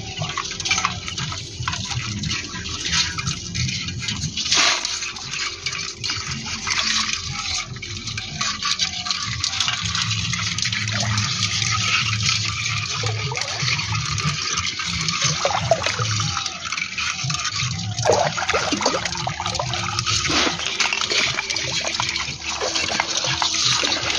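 Water sloshing and splashing steadily as someone wades through shallow pond water.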